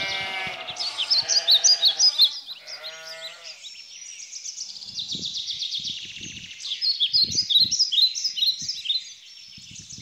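Sheep bleating a few times in the first three seconds or so, over small birds singing and chirping. The birdsong carries on alone after that and is loudest near the start and again about seven to nine seconds in.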